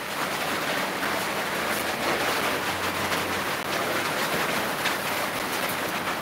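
Steady rain falling, an even hiss of drops throughout.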